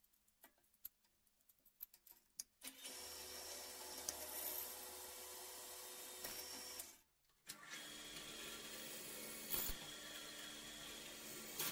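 Bench drill press running as a freshly sharpened twist drill bores into a steel plate: a quiet steady motor hum in two stretches, broken by a short gap about seven seconds in, after a few light clicks of handling.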